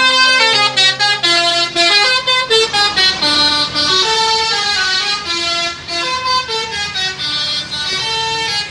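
Indonesian bus 'telolet' horn playing a quick melody, several horn tones sounding together and stepping from note to note.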